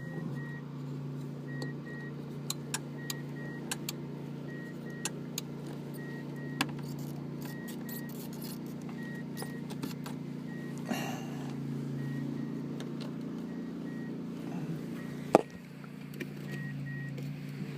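Steady low hum from the 2000 Toyota Tundra under a faint warning chime that beeps in pairs about every second and a half. Scattered plastic clicks come from relays being handled in the fuse box, with one loud sharp click near the end.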